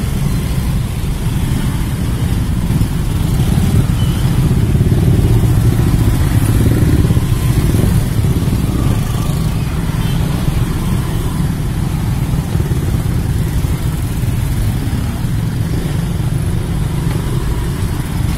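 Motor scooter engines running in slow, crowded traffic: a steady low rumble that swells a little a few seconds in.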